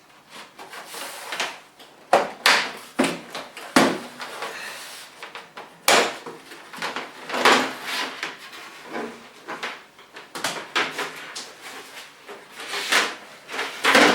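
Knocks, clicks and scraping of a flat-screen TV's casing being handled and opened up, with a dozen or so sharp knocks spread irregularly through it.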